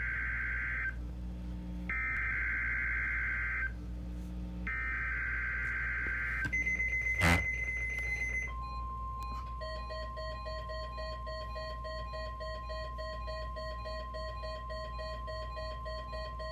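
NOAA Weather Radio test signal: the emergency alert data bursts repeated three times as short, harsh high-pitched squawks. After them comes a brief steady high tone with a loud click, then the steady warning alarm tone for about nine seconds with rapid, regular beeping over it.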